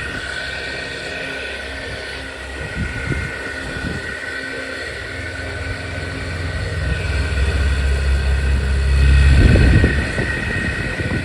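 Repaired farrata high-speed pedestal fan running steadily, with a rush of air and a steady hum. It no longer makes its earlier rattling noise. A low rumble swells and peaks about nine seconds in, then drops away.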